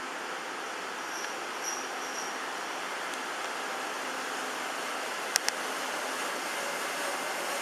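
Steady rushing noise of a Taiwan Railways electric locomotive with its Chu-Kuang Express coaches, with a few faint high squeaks about a second in and two sharp clicks in quick succession a little past the middle.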